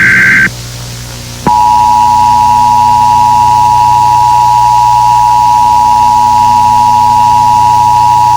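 Emergency Alert System broadcast tones: the tail of a buzzing digital SAME header data burst, a pause of about a second, then the EAS attention signal, a steady two-tone sound, starting about a second and a half in and held without a break.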